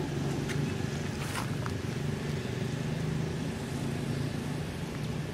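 Steady low engine hum, like a motor vehicle running nearby, with a few faint clicks in the first second or two.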